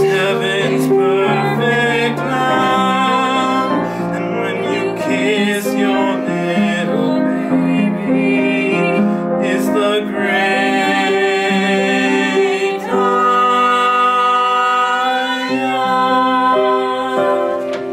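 A man and a woman singing together from sheet music, accompanied on piano.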